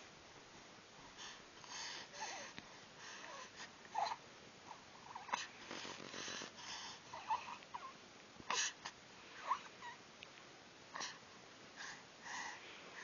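A baby's short breathy grunts and little squeaky coos, faint, coming about once a second.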